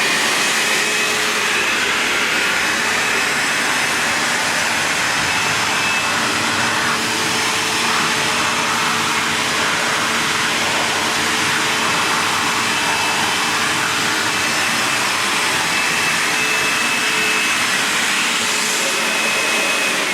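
Vax HF1400 New Wave carpet washer-vacuum running steadily at full power, a loud even motor whine and rush of suction air.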